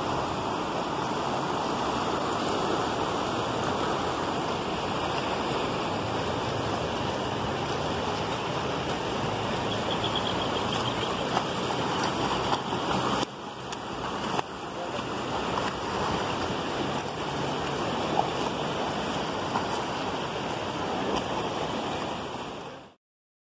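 Swollen floodwater rushing through river rapids, a steady loud rush of churning water. It dips briefly about halfway through and cuts off abruptly just before the end.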